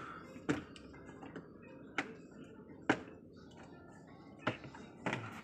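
Hard plastic panels of a drawer cabinet clicking and knocking as they are slotted and pressed into place, about six sharp clicks at irregular intervals.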